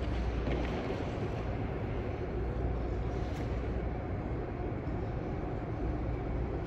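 Steady low rumble of an indoor ice rink's background machinery, with a few faint scrapes of figure skate blades on the ice.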